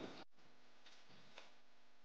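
Near silence: faint room tone with a couple of soft ticks, after a louder sound cuts off about a quarter second in.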